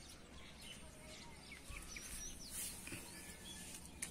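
Quiet outdoor background with faint, scattered bird chirps and a couple of soft clicks.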